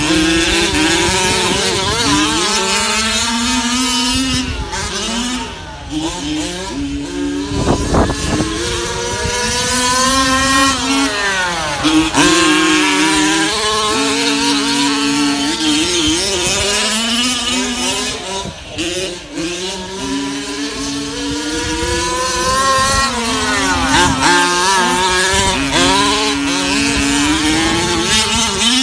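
Two 1/5-scale petrol RC trucks with 29cc and 32cc two-stroke engines racing, revving up and down in overlapping, rising and falling whines as they accelerate and brake around a dirt track.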